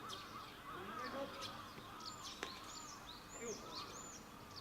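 Faint outdoor ambience of distant voices, with birds chirping in short repeated arching calls. One sharp click comes about two and a half seconds in.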